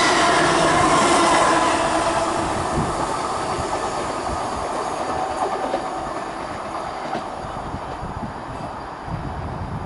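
Great Western Railway Hitachi Intercity Express Train running past on the rails. It is loud at first, with a few steady tones over the rumble, and fades steadily as it moves away.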